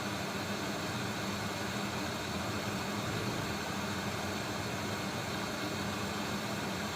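Hot air rework station blowing a steady stream of hot air with an even hiss and a low hum, melting the solder on a Joy-Con R shoulder button's pins so the button can be lifted off.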